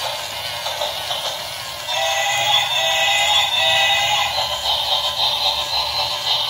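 Battery-powered toy train playing an electronic tune with a synthesized singing voice through its small built-in speaker. The tune has no bass and grows louder about two seconds in.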